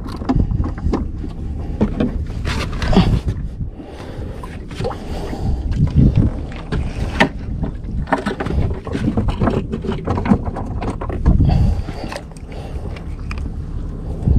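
Sounds aboard a small fishing boat at sea: a steady low rumble with irregular knocks and clatter, and wind buffeting the microphone.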